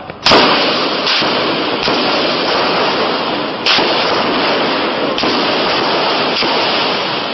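Gunfire in a street firefight: a loud shot just after the start and another about three and a half seconds later, with fainter cracks between, over a steady loud rushing noise.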